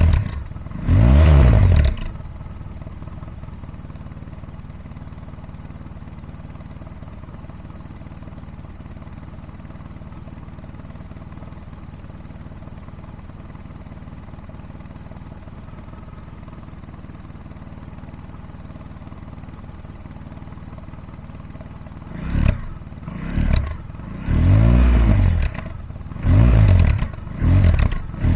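Honda VFR1200X Crosstourer's V4 engine through a Leo Vince Evo One carbon exhaust. It gives a quick throttle blip at the start, then idles steadily for about twenty seconds, then is revved several times, each rev rising and falling back.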